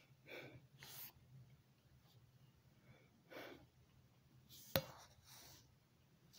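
Near silence with a few faint, soft rustles and one sharp click a little before five seconds in.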